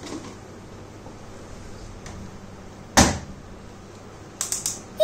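A plastic toy oven door shutting with a sharp knock about three seconds in, then a few quick clicks near the end as a knob on the toy kitchen is turned.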